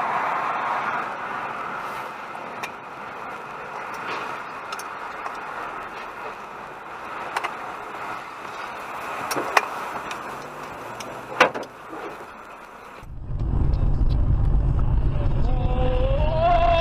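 Vehicle and road noise from dash-cam footage, steady, with two sharp clicks in the second half. Partway through it cuts to a louder, deeper rumble, and a rising tone comes in near the end.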